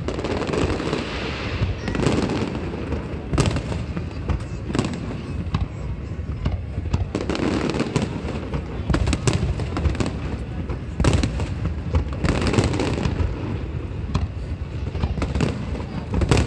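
Fireworks display: a dense, continuous barrage of bangs and crackles, several bursts every second over a constant low rumble of booms.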